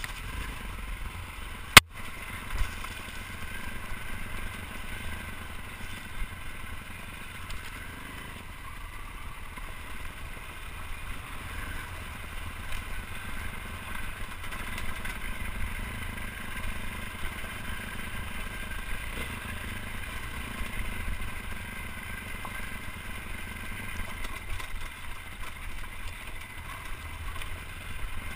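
Dirt bike engine running steadily while riding a rough rocky trail, heard from a helmet-mounted camera, with low rumble and clatter from the bumpy ground. There is one sharp knock about two seconds in.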